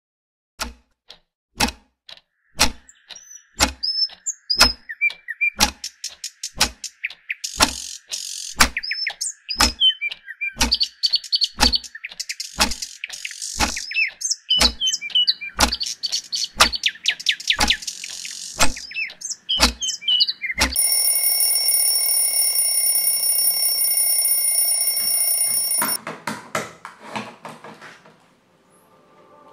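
Steady ticking, about two ticks a second, with birds chirping over it. About twenty seconds in, a steady electronic alarm starts ringing, cuts off after about five seconds, and a few clicks follow.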